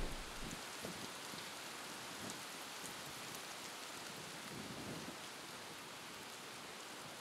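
Faint, steady outdoor hiss with scattered soft ticks; no calls from the resting ducks.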